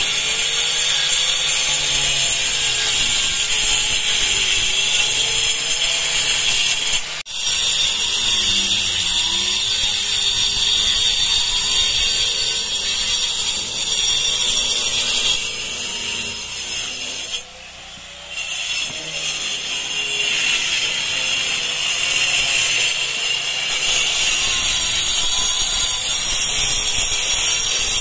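Electric angle grinder cutting a groove into a masonry wall to chase in concealed wiring, its motor whine wavering as the disc bites into the brick. The sound cuts out for a split second about seven seconds in and drops quieter for a moment a little past halfway.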